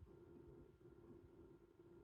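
Near silence: a faint steady hum of room tone.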